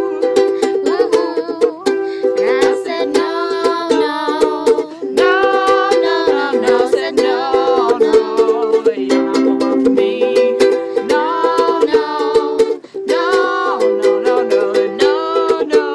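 Ukulele strummed in a steady rhythm, with women's voices singing along over the chords.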